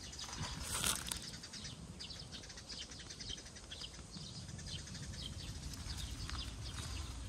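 Outdoor ambience of small birds chirping in short repeated calls, over a steady low rumble, with a brief rustle about a second in.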